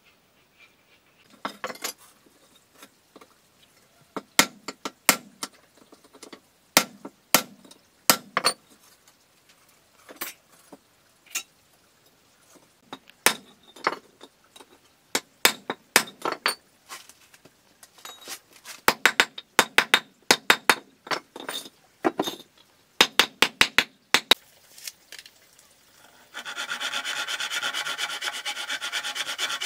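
Irregular sharp taps and clinks of a metal tool striking a stone brick, in uneven clusters. Near the end a handsaw cutting a wooden plank takes over as a steady rasp of back-and-forth strokes.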